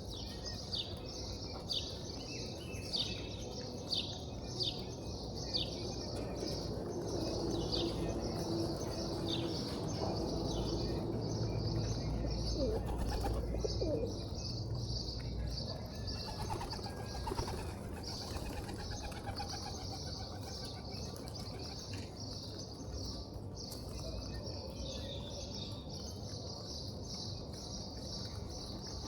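A flock of pigeons at feed, with wings flapping and low cooing, under a dense, continuous high chirping of small birds. The chirps come as quick falling notes in the first ten seconds or so, then run together.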